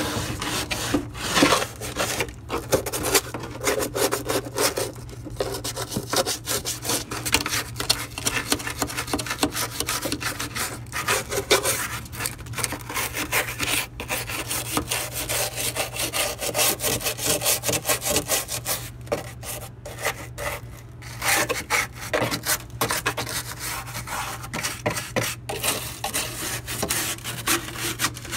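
Small brush scrubbing hard mineral scale off the plastic surfaces inside an ice machine, in quick irregular rasping strokes with a few short pauses, over a steady low hum.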